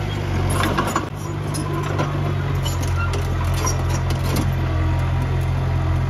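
Heavy earthmoving machine's diesel engine running steadily, with a few short clanks and rattles, most of them about a second in.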